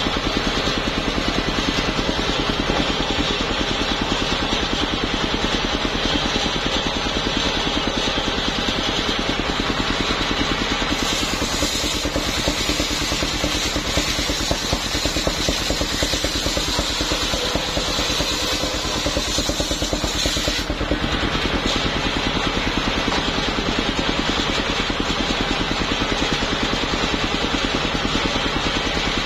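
Engine of a homemade truck-mounted circular sawmill running steadily with its blade spinning. A brighter hiss joins for about ten seconds in the middle.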